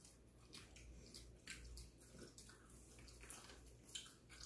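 Faint eating sounds from fried chicken being handled and chewed: a scatter of soft crackles and small clicks, barely above near silence.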